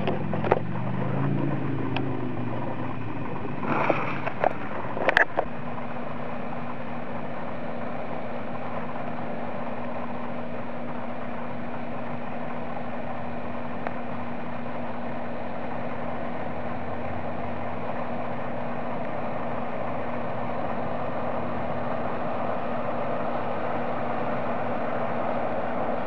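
Cooked potassium nitrate and sugar smoke bomb burning with a steady hissing rush that grows slightly stronger toward the end. A few sharp clicks and knocks come in the first five seconds.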